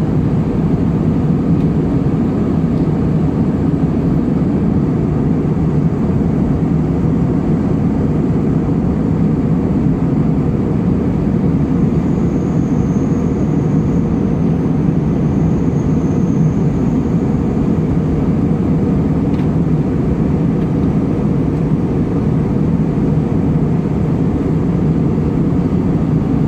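Steady cabin noise of a jet airliner in cruise, heard inside the cabin: an even, low rush of engine and airflow noise with no change throughout.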